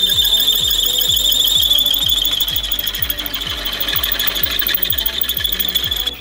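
Drill press bit cutting into a metal motor-mount plate, a loud, steady high-pitched squeal with rapid chatter as the bit bites the metal.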